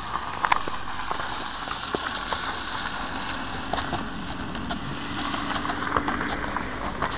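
Hooves and footsteps crunching on icy, crusted snow: irregular short clicks and crunches over a steady hiss, with one sharper crack about half a second in.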